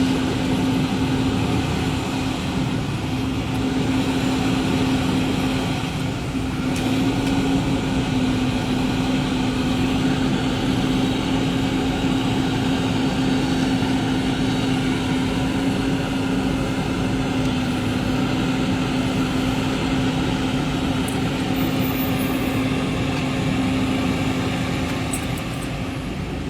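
A motor vehicle's engine running steadily, with a constant low hum.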